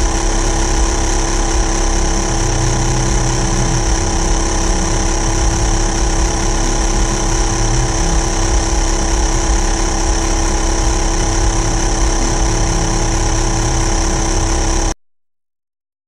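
Xiaomi portable electric air compressor running steadily while inflating a car's spare tyre: a constant motor drone with a high whine. It cuts off suddenly near the end.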